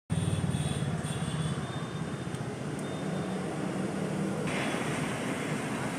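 Steady street background din with a low engine-like hum; the hum drops out abruptly about four and a half seconds in, leaving a brighter hiss of traffic noise.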